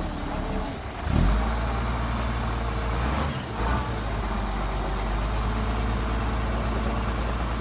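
Heavy diesel engine of earth-moving machinery running with a steady low drone, revving up sharply about a second in and easing briefly a little past the middle.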